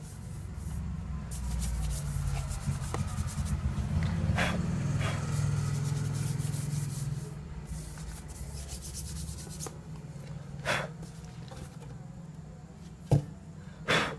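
Hands handling the opened laptop: several seconds of rubbing and scraping, then a few separate sharp clicks or knocks near the end.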